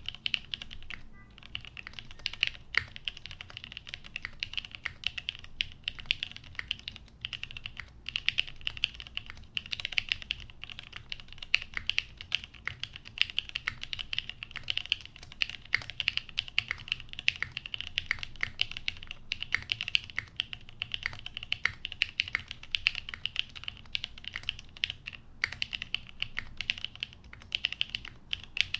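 Fast, continuous typing on a plateless custom mechanical keyboard (Ion Keyboards Jubi) with lubed Cherry MX Hyperglide housings, Cream linear stems and OG Cherry G81 keycaps: a dense stream of bright keystroke clacks that starts abruptly.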